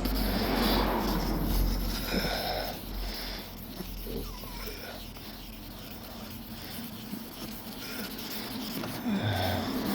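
Wet-and-dry abrasive paper rubbing by hand over a car's painted panel, irregular sanding strokes that are louder in the first few seconds and then quieter.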